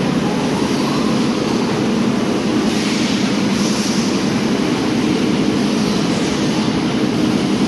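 Mineral-water bottling line running: a steady machine hum from the conveyors and machines, with brief hisses about three and four seconds in.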